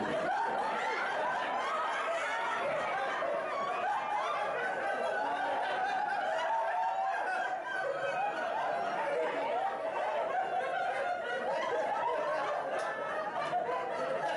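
A roomful of people laughing and chuckling, many voices overlapping without a break.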